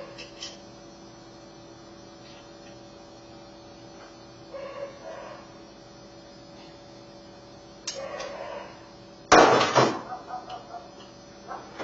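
Handling noises from hand tools and small metal parts while wiring a 250-volt plug: scattered faint clicks and scrapes, and one loud clatter about nine seconds in, followed by a few small clicks. A steady low hum runs underneath.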